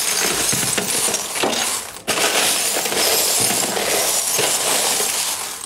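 A large heap of tumbled crystal stones, gua sha stones and glass roller bottles clattering and clinking as a hand rakes and stirs through the bin. It is a continuous rattling jangle of stone on stone and glass, with a brief break about two seconds in.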